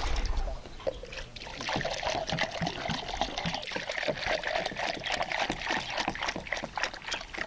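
Water poured from a jug onto a heap of straw, splashing steadily with a short lull about a second in: the straw is being wetted to make EM-treated animal feed.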